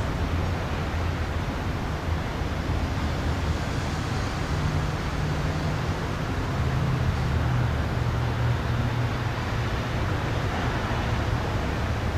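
Steady outdoor background noise: a low hum of road traffic under an even hiss, the hum shifting in pitch about four seconds in.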